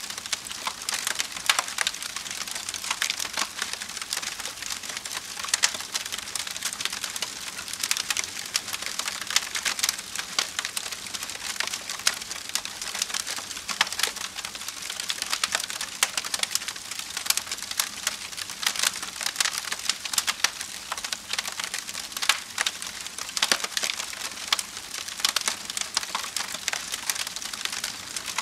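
Wood fire burning with continuous crackling and frequent sharp pops over a steady hiss.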